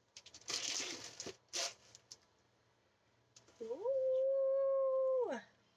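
Brief rustling and scuffing as the rolled rubber mat is handled, then a woman's long, high, steady excited squeal that glides up at the start and drops off at the end.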